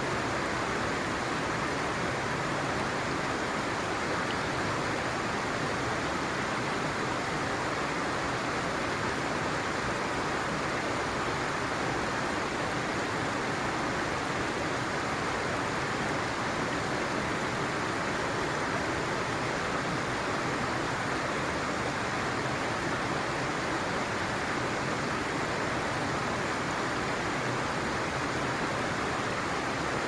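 Steady, even rush of a shallow stream running over stones.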